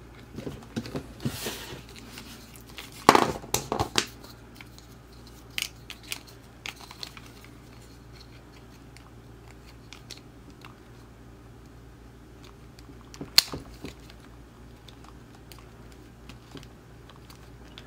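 Plastic parts of a toy motorcycle being handled as a holster accessory is pushed onto its pegs: scattered clicks, taps and rubbing, with a cluster of louder clicks about three seconds in and one sharp click near the middle.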